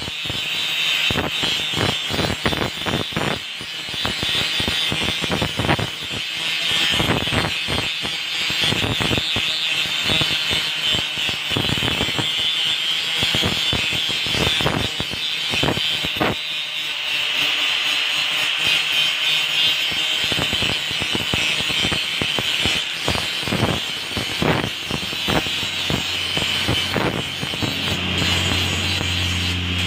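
Handheld electric angle grinder grinding a steel machete blade: a steady high whine from the spinning disc with continuous rough, scratchy grinding as it bites the metal. A low hum joins near the end.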